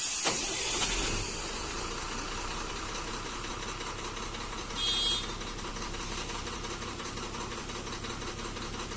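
A loud hiss dies down about a second in, leaving a steady idling tractor engine sound with a low hum; a short high-pitched tone sounds briefly about five seconds in.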